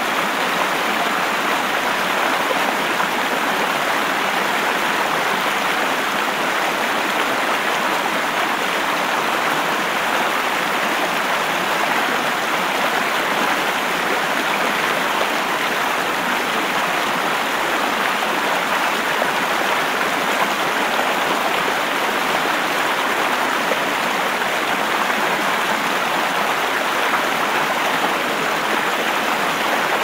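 Rushing river water, a steady, even hiss-like roar with little deep rumble.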